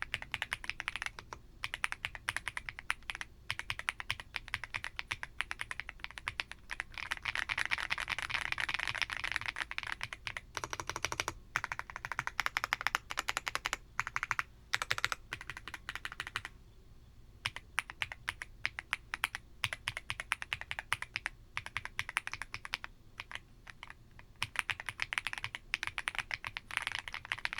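Fast typing on an Aula F75 75% mechanical keyboard with Strawberry Mint switches: a dense, continuous stream of key clacks with a few short pauses, the typing itself smooth.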